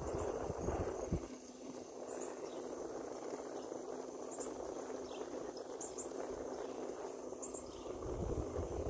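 Insects trilling steadily, high-pitched, over a steady rushing hiss. A low rumble, like wind on the microphone, comes in the first second and again near the end.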